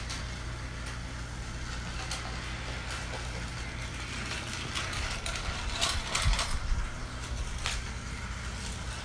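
Small battery-powered Zip Track toy cars running on snap-together plastic track: a steady small-motor whir with scattered clicks and rattles, the clicks louder and more frequent from about five to eight seconds in.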